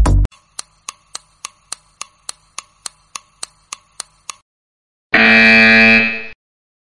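Quiz countdown sound effect: a clock ticking about three to four times a second for some four seconds, then a loud buzzer lasting just over a second as the answer is revealed.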